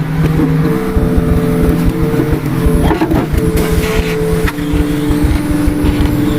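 An engine running steadily with a dense low rumble, its tone shifting a little under a second in and again about four and a half seconds in.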